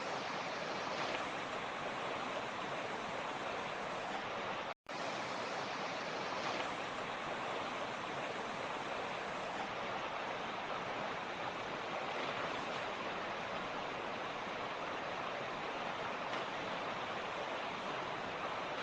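Mountain creek rushing steadily over rocks, an even hiss of water, broken once by a split-second dropout to silence about five seconds in.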